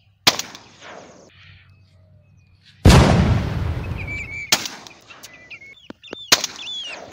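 Four 12-bore shotgun shots. The second, about three seconds in, is the loudest and has a long low tail. Short whistled bird calls sound between the last shots.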